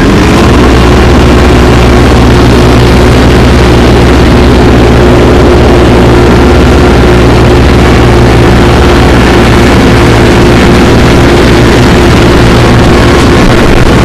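New Holland compact tractor's diesel engine running loud at high throttle while mowing. It revs up just at the start, then holds a steady pitch.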